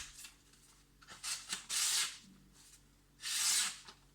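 Leatherman Free P4 knife blade slicing through material, two scraping cuts about two seconds apart, a sharpness test.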